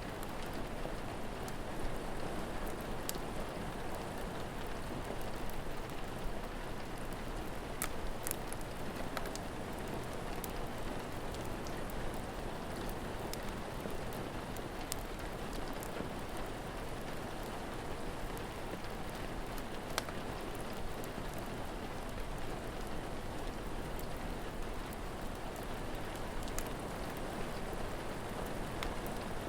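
Steady rain falling, with a few sharp pops of a crackling fire scattered through it.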